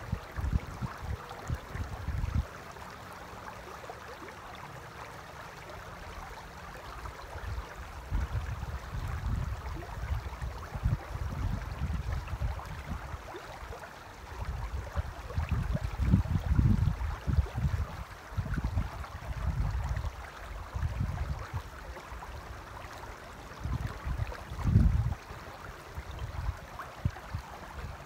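Shallow river running over stones, a steady rushing hiss, with gusts of wind buffeting the microphone in low rumbles that come and go, the strongest about halfway through and again near the end.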